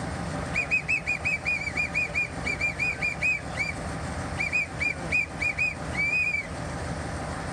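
Railway guard's whistle blown in quick short toots, about six a second, in two runs, the second ending on one longer blast. It is the right-away signal for the train to depart, given with a waved green flag.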